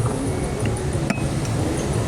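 A steady low rumble with two short, light clinks, one at the start and one about a second in, the second ringing briefly.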